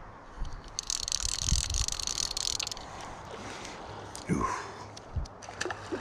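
Fly reel's click-and-pawl ratcheting in a fast rattle for about two seconds, starting about a second in, as line moves on the reel while a hooked fish is played on the fly rod. A single thump follows a couple of seconds later.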